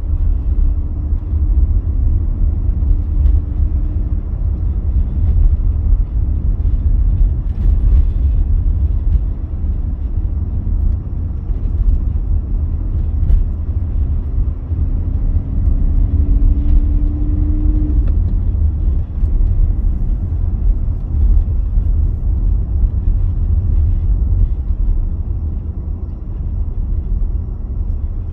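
A moving car's road and engine noise heard from inside: a steady, heavy low rumble, with a faint engine hum rising twice as the car picks up speed.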